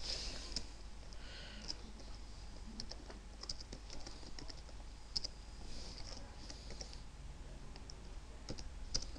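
Faint, irregular keystrokes on a computer keyboard as a file name is typed.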